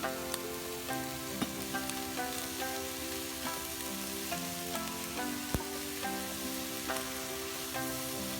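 Pork offal and vegetables sizzling in a frying pan, a steady crackling hiss with a few sharp clicks, the loudest about five and a half seconds in. Background music with held, changing notes plays over it.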